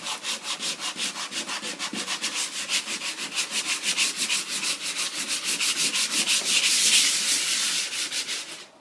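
Sandpaper sanding a fiberglass tub floor by hand in quick back-and-forth strokes, about five a second, stopping near the end. It is scuffing the surface so the adhesive can bond.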